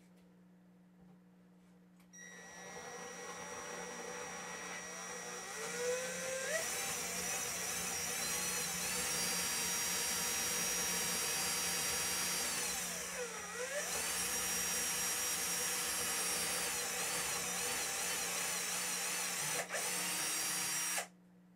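Handheld electric drill with an 11/32-inch bit boring through the cajon's top panel, widening the hole for the pickup. The motor starts about two seconds in and speeds up to a steady whine. It slows briefly about halfway, picks up again, and stops abruptly just before the end.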